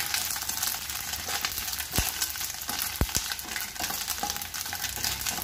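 Coconut slivers, curry leaves and dried red chillies sizzling in hot coconut oil in a steel pan, stirred with a spatula, with a few sharp clicks about two and three seconds in.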